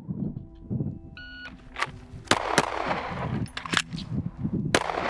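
Shot timer beep about a second in, then pistol fire: a quick pair of shots, a short gap for the reload, and a final shot about 3.6 seconds after the beep. This is a timed draw-and-reload drill.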